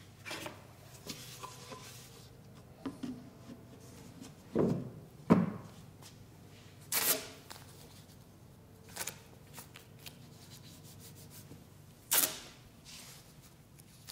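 Hands working on a wooden tunnel of panels: two knocks a little past four seconds in, the loudest sounds, then strips of tape being pulled and rubbed down onto the wood, with two short rasping tears near seven and twelve seconds in.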